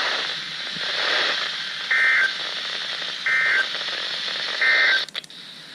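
NOAA Weather Radio SAME end-of-message data tones: three short buzzy bursts of digital data about a second and a half apart over receiver hiss, marking the end of the alert message. Just after the third burst a couple of clicks are heard and the hiss drops as the transmission changes.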